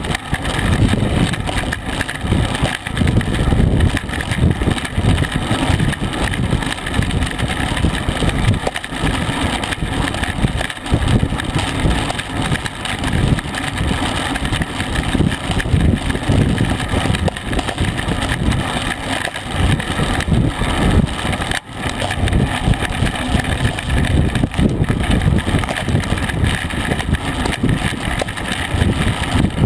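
Wind rushing over the microphone of a camera mounted on a road racing bicycle moving at about 25 to 30 mph: a steady, buffeting low rumble.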